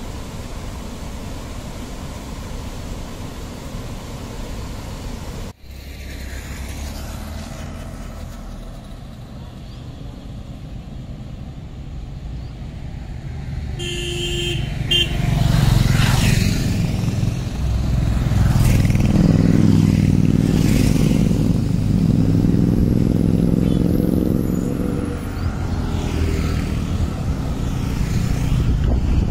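Floodwater rushing steadily over the riverside steps, then a sudden cut to road traffic: a short horn toot, and motorbike and bus engines passing close and loud.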